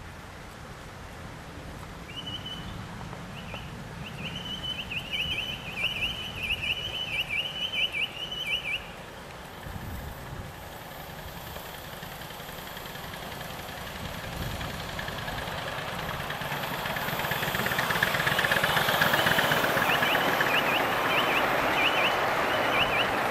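Miniature live-steam locomotive hauling a short train of carriages, its running noise growing steadily louder in the second half as it draws close and passes. A high piping tone sounds in short bursts, then in a long broken run early on, and again in short bursts near the end.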